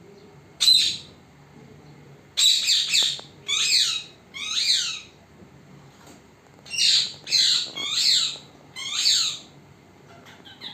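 Pet parrot giving loud, harsh squawking calls with a falling pitch: one call about half a second in, a quick run of four between about two and a half and five seconds, then another run of four from about seven to nine and a half seconds.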